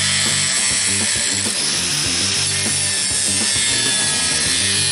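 Angle grinder grinding a steel tube, throwing sparks, a steady high hiss. Background music with a steady beat plays underneath.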